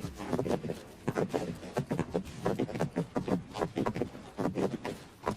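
Horses' hooves galloping: a quick, uneven run of hoofbeats, about four or five a second.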